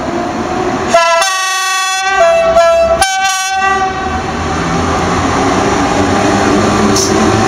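Polish EP07 electric locomotive sounding its horn in several blasts about one to three and a half seconds in, the pitch stepping between them. Afterwards the locomotive and its carriages roll past, the wheel and running noise slowly growing louder.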